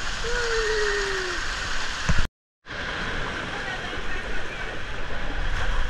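Steady rush of water running down an enclosed tube waterslide, with a short falling squeal about half a second in and a thump about two seconds in, after which the sound cuts out for a moment before the rushing returns.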